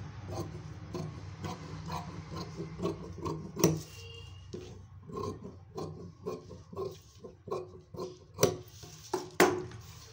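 Large tailoring shears snipping through folded cotton blouse fabric on a table, a steady run of short snips with a few sharper, louder clacks, the loudest near the end.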